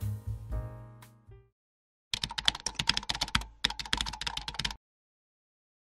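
Background music dying away, then a computer-keyboard typing sound effect: two runs of rapid key clicks, each about a second long, with a short break between them.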